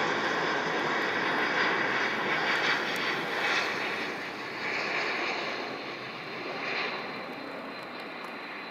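Airbus A220-100 airliner on landing approach, its geared turbofan engines making a steady jet rush that fades over the last few seconds as it passes and moves away.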